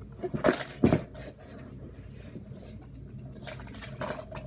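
Soft thumps and scuffs of toys being moved and knocked about on a carpet by hand, with a deeper thump about a second in and a few faint knocks near the end.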